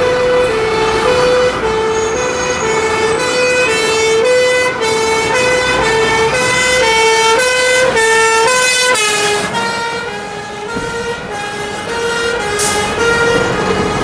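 A fire engine's two-tone air horns sound a steady high-low alternation, each note held about half a second. The pitch drops about nine seconds in as the engine passes.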